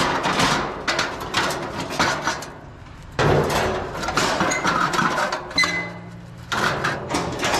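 Scrap metal being handled: a string of clanks and rattles, with two short lulls.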